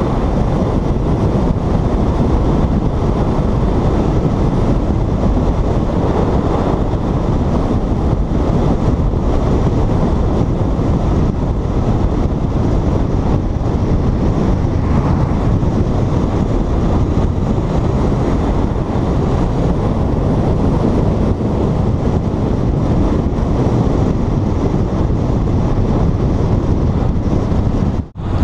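Steady wind rush on a helmet-mounted microphone while riding a Honda CBR500R at road speed, with its two-cylinder engine running beneath. The sound dips briefly near the end.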